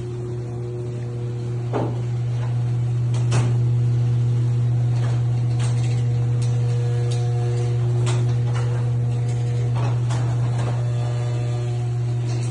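Newly installed electric garage door opener running, moving the door: a steady motor hum with scattered clicks and rattles from the door.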